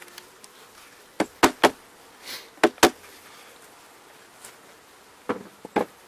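Sharp wooden knocks and taps in quick groups: three about a second in, two more near the three-second mark, and a few near the end. They come from the wooden formic acid pad rack and hive parts being knocked as the rack is taken off an open beehive. A faint hum of honey bees runs underneath.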